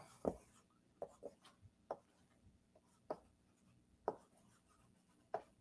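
Chalk on a blackboard as words are written: a few faint, irregular taps and short scrapes, with quiet gaps between strokes.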